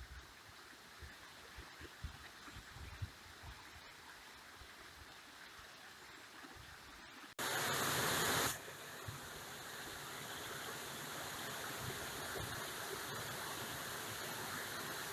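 Rushing water of a mountain stream and waterfall, a steady hiss. The sound cuts off abruptly about seven seconds in, comes back louder for about a second, then carries on steady.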